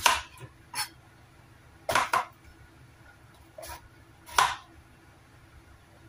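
Chef's knife chopping through an eggplant onto a cutting board: about six sharp knocks at uneven intervals, two of them close together around two seconds in.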